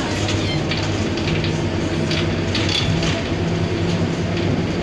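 Cabin noise inside an Iveco Euromidi low-entry city bus on the move: a steady low diesel drone, with short rattles and clicks from the body and fittings.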